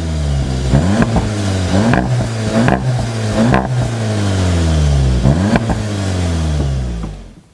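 SEAT Leon Cupra 300's turbocharged 2.0-litre four-cylinder engine accelerating hard. Its pitch climbs and breaks off several times, each break marked by a sharp exhaust crack, then falls away and fades out near the end.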